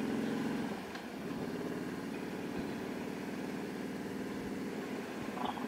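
Harley-Davidson Heritage Softail Classic's V-twin engine running steadily at low road speed, with a slight drop in level about a second in.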